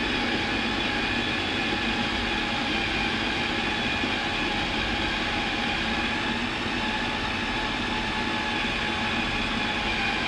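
Electric food processor running steadily, its motor giving a constant whirring note as the blade grinds minced lamb, soaked bulgur, onion and bell pepper into a smooth paste.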